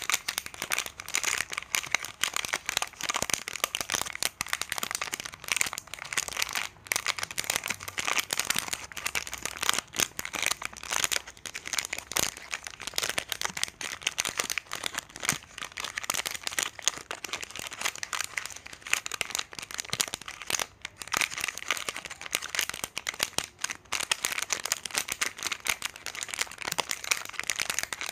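Continuous dense crinkling and crackling of plastic chocolate-bar wrappers, with no pauses.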